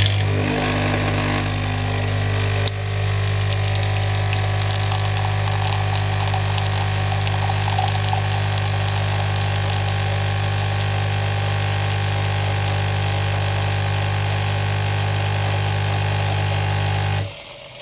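Philips Senseo coffee-pad machine brewing a cup: its pump hums steadily while coffee streams into the mug, then stops suddenly near the end.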